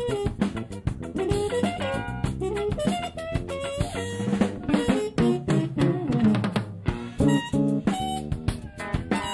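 Live jazz-funk band playing, with a busy drum kit (snare, rimshots, bass drum) to the fore over electric bass and electric guitar lines, some of the notes bent.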